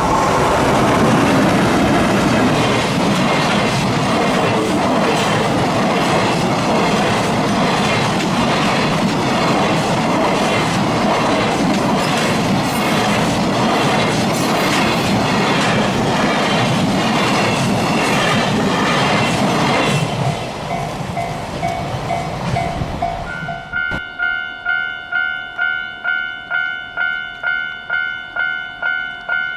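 EH500-hauled freight train passing at speed, a loud steady rush with the wheels clattering rhythmically over rail joints, which stops abruptly about three-quarters of the way through. After it, a ringing alarm pulses about twice a second.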